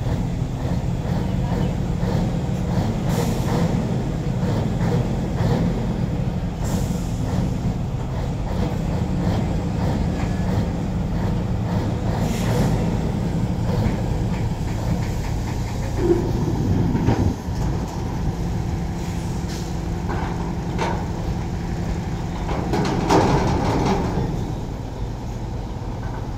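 Heavy diesel engines running steadily at idle, from the container truck and the truck-mounted crane, with a few short hisses of air. There are brief louder knocks just past the middle and again near the end.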